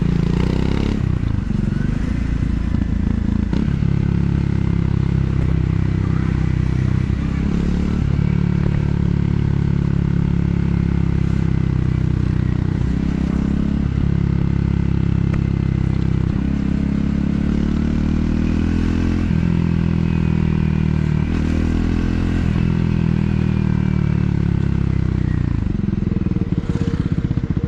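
Triumph Scrambler 400 X's single-cylinder engine and stock exhaust under way, revs rising and falling through several shifts. Near the end the engine drops back to low revs.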